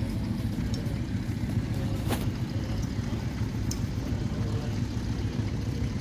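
Tractor engine running steadily with a low rumble, and a single sharp click about two seconds in.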